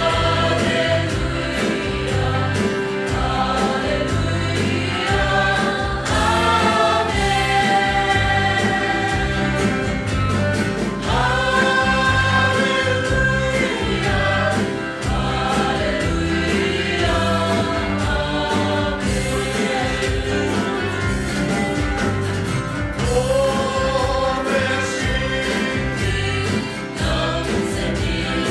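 Choir singing a gospel hymn with instrumental accompaniment and a steady beat.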